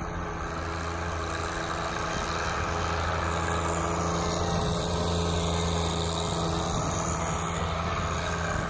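John Deere 1025R compact tractor's three-cylinder diesel engine running at a steady speed while pushing snow with its front loader bucket. It grows louder as the tractor passes close by, then eases off.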